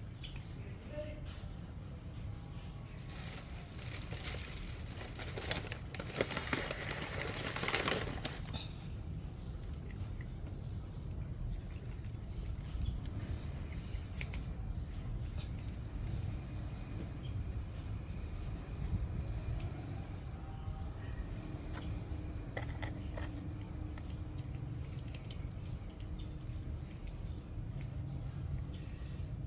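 Short, high chirps repeating one or two times a second, like small birds, over a low steady rumble. A few seconds in there is a burst of rustling noise lasting several seconds.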